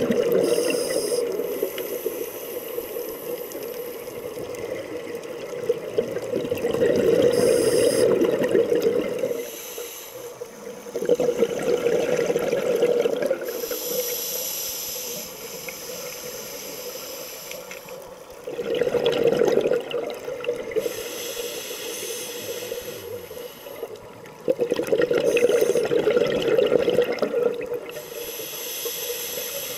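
Scuba diver breathing through a regulator underwater. Hissing inhalations alternate with bubbling exhalations, about one breath every five to six seconds.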